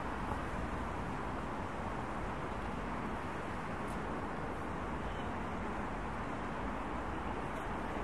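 Steady, even wash of distant road traffic, with no single vehicle standing out.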